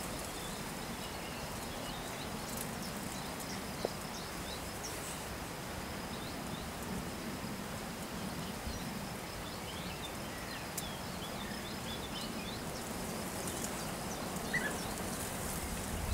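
Steady outdoor ambience: a soft even hiss with a faint, steady high-pitched tone, and scattered faint short bird chirps, most of them in the middle stretch.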